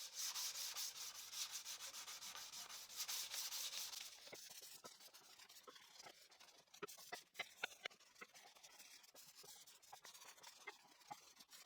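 Fine 320-grit sandpaper rubbed by hand over wood in quick back-and-forth strokes, faint, dying away about four seconds in; a few light ticks follow later.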